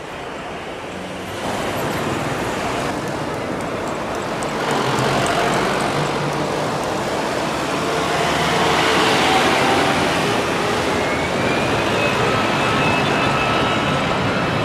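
Jet airliner engine noise, growing steadily louder: a Boeing 737 climbing away after takeoff, then an Airbus A320's CFM56 engines at takeoff power as it rolls down the runway, with a rising whine near the end.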